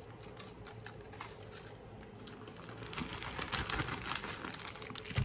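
Brown sugar being crumbled and scattered by hand over sliced sweet potatoes: a run of light crackling and ticking, busiest about three to four and a half seconds in, with a soft thump near the end.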